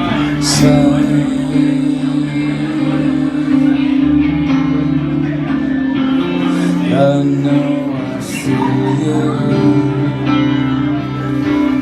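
A live band playing a guitar-led rock song, with sustained guitar and bass notes. Two sharp crashes come, one near the start and one about eight seconds in.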